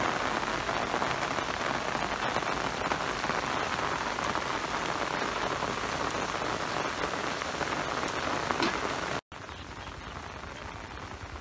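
Steady rain falling on a jute field, an even hiss of drops on the leaves and wet ground. About nine seconds in it cuts abruptly to a quieter level.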